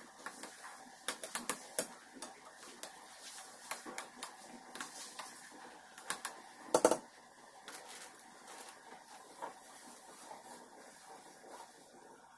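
Metal utensil clicking and scraping against a stainless steel frying pan while stirring instant noodles, irregular taps with a louder clatter about seven seconds in.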